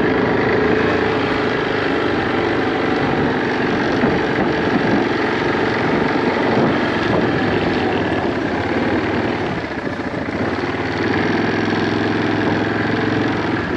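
An engine running steadily at idle throughout, with a dense rushing noise over it.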